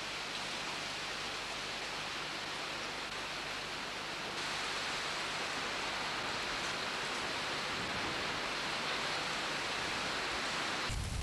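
Steady, even rushing noise like running water, becoming a little brighter and louder about four seconds in.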